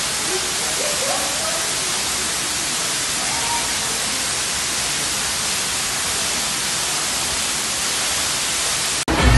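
Steady rushing hiss of rainwater pouring down through a storm-collapsed ceiling. It cuts off abruptly near the end.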